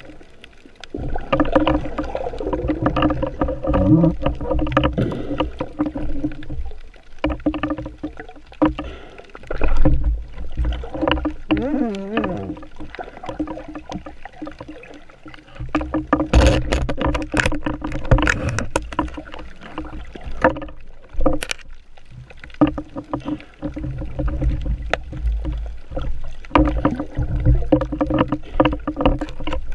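Water sound as picked up by a diving camera: swishing and gurgling water over a steady low drone, with a few sliding pitched sounds and, in the second half, several sharp clicks.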